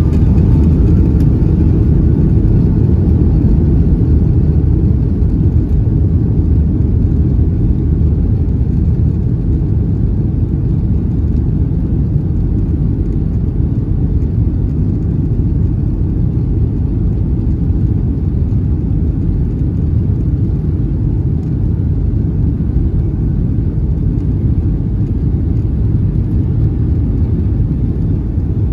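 Cabin noise inside a Boeing 757-200 taxiing: a steady low rumble of the engines at taxi power, easing slightly after the first few seconds.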